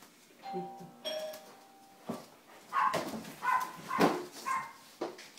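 Two-tone doorbell chiming ding-dong about half a second in, a higher note then a lower one. It is followed by a dog barking in short loud barks, about two a second.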